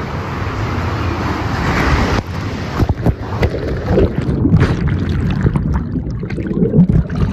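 Churning wave-river water splashing and rushing over a camera in a waterproof case at the waterline. About two seconds in the camera goes under and the sound turns muffled, with choppy low sloshing pulses.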